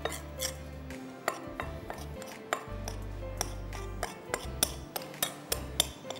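Irregular light clinks and taps against a mixing bowl as cold butter is worked into a crumble mix of flour, ground almonds and sugar, a few each second, over low background music.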